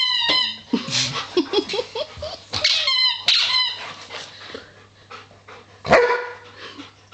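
A dog chewing a squeaky toy, which gives short high squeaks in quick bursts at the start, about three seconds in and again near six seconds. Between the squeaks there is crinkling and rustling of the packaging it is worrying.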